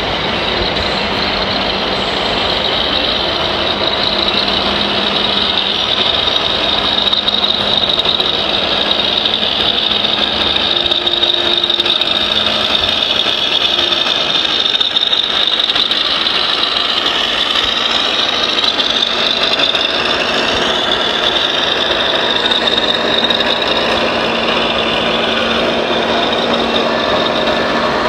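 Radio-controlled model construction machinery running: a steady high electric motor and hydraulic pump whine over an engine-like rumble, the whine shifting in pitch briefly about two-thirds of the way through.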